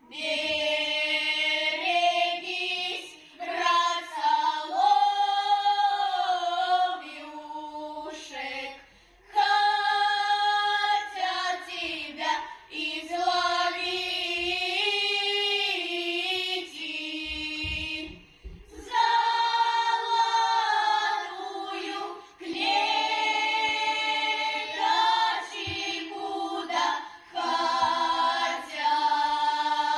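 Female choir singing a Russian folk song a cappella in harmony, several voices holding parallel lines. It goes in long phrases with brief pauses between them.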